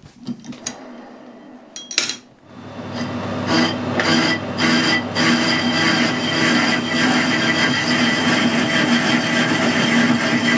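Metal lathe being switched on with a click about two seconds in, then running up to speed and running steadily with a gear whine and clatter, spinning a square aluminium plate held in its four-jaw chuck.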